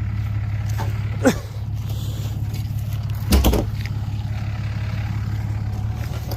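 Cummins inline-six turbodiesel in a Dodge Ram 2500 idling with a steady low drone. A short falling sound comes about a second in, and a brief knock, the loudest moment, comes about three and a half seconds in.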